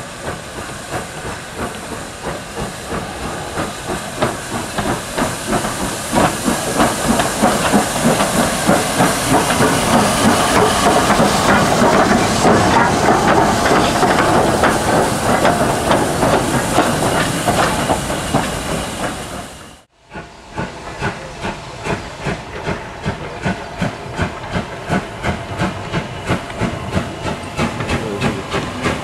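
Southern Railway S15 4-6-0 steam locomotive No. 825 running past at close range, its exhaust beating steadily over loud hissing steam. After a cut about twenty seconds in, LMS Black Five 4-6-0 No. 45407 comes on slowly with a steady chuffing exhaust.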